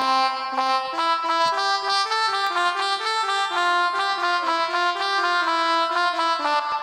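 Virtual pianica (melodica) from a phone app playing a quick, reedy melody of short stepped notes, in the style of a telolet bus-horn tune. It stops with a click near the end.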